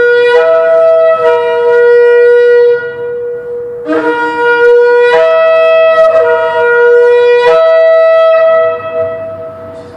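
Two Yemenite shofars blown together in long held blasts, one on a lower note and one on a higher note, their tones overlapping. The blasts break off briefly about three seconds in, then sound again until a little before the end. An echo from the parking structure trails after each blast.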